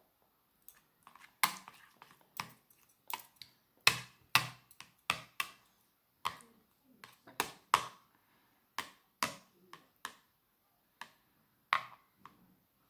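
Metal chopsticks clicking and tapping against a plastic plate while picking up and cutting rice cakes in sauce: a string of sharp, irregular clicks.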